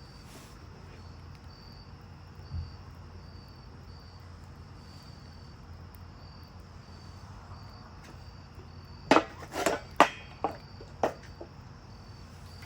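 Insects chirping in a steady, evenly spaced high pulse. Between about nine and eleven seconds in, five or six sharp, loud knocks and clatters of hard objects cut in, with a small thump earlier on.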